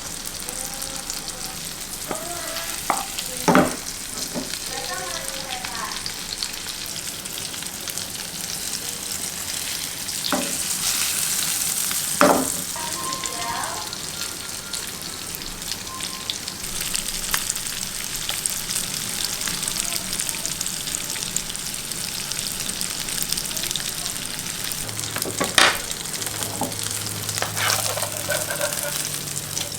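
Rib eye steak sizzling in a hot pan, a steady hiss. Three sharp knocks cut through it, about three seconds in, twelve seconds in and near the end.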